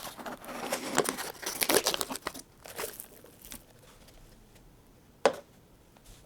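Snack packaging being handled, crinkling and crackling densely for the first few seconds, then tapering off to scattered crackles, with one sharp click about five seconds in.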